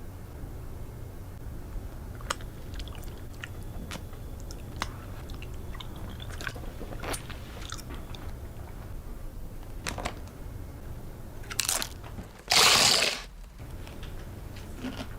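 Crisp crunching and chewing of Doritos tortilla chips, in scattered sharp crunches. Near the end comes one loud, noisy burst under a second long, a sneeze.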